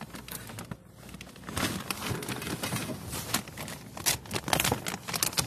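A bag rustling and crinkling while it is handled, with many irregular clicks and knocks of hard objects. It picks up about a second and a half in.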